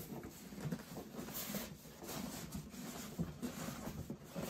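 Cardboard sleeve scraping and rustling against a foam packing box as it is worked off by hand, with irregular scuffs and taps of handling.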